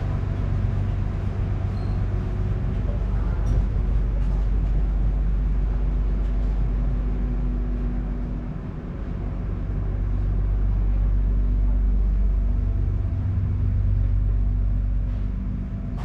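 Passenger ferry's engine running with a steady low drone heard on board, easing off briefly about eight seconds in and then building again.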